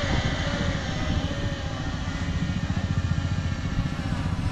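IZI 4K quadcopter drone hovering overhead, its propellers giving a steady whine of several tones that drift slightly in pitch, with a low rumble underneath.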